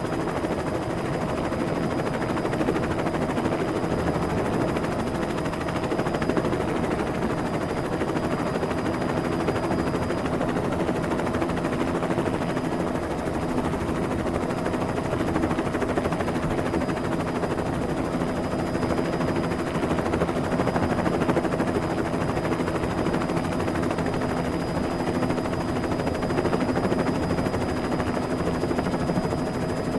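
Helicopter sound effect: a helicopter's rotors and engine running steadily, with a thin high whine.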